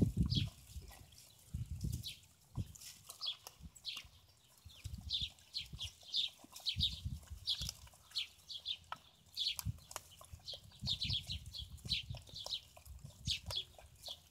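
A litter of puppies eating, with irregular low chewing and smacking noises from their muzzles in the food, loudest right at the start. Small birds chirp repeatedly behind it, short quick notes several times a second.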